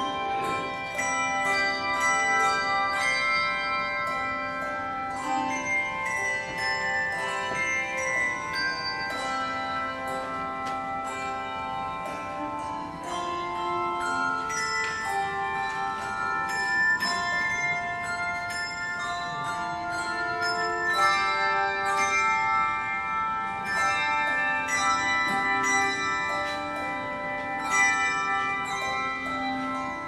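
Handbell choir ringing a hymn arrangement: many pitched bells struck in quick succession and left to ring over one another, with the chords changing every second or so.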